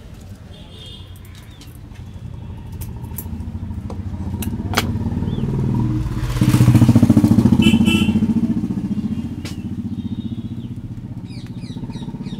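A motor vehicle engine passing close by: it grows louder, is loudest about six to eight seconds in, then fades. Scattered sharp clicks sound over it.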